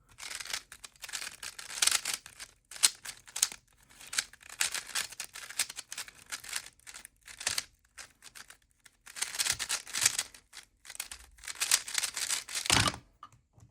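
Speedcube being turned fast in a timed solve: rapid plastic clicking and clacking of the turning layers, in quick flurries broken by short pauses.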